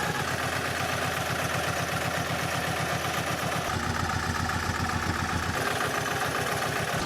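Road roller's engine running steadily at idle, its tone shifting slightly for a couple of seconds past the middle.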